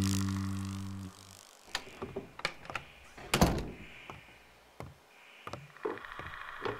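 A distorted electric guitar chord rings out and fades in the first second. Then comes a run of wooden knocks and clicks, the loudest a thunk about three and a half seconds in: a cabin door opening and shutting.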